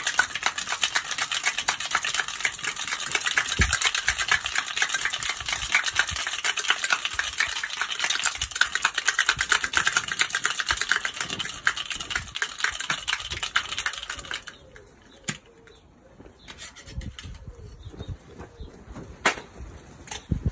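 Ice rattling fast and hard inside a metal cocktail shaker being shaken, stopping abruptly about fourteen seconds in. A few quieter clicks and one sharp knock follow near the end.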